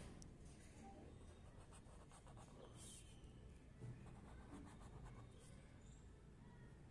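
Faint scratching of a black marker pen drawing straight lines on paper, in a few short strokes.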